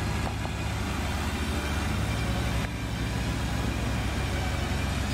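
All-terrain vehicle engine running steadily with a low, even rumble.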